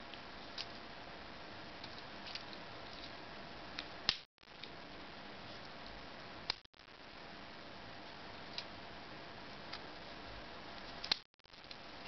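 Victorinox Explorer Swiss Army knife handled by hand, its blades and tools being opened and closed: sharp single clicks as they snap into place against their springs, several scattered through, over a steady hiss. The sound cuts out briefly three times, each right after one of the loudest clicks.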